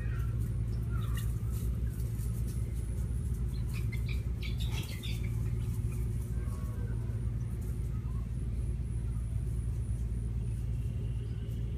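Steady low rumble, with scattered faint bird chirps and a cluster of them about four to five seconds in.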